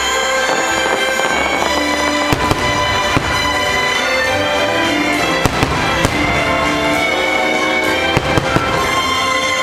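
Fireworks going off, with several sharp bangs and crackles, over the show's music playing steadily.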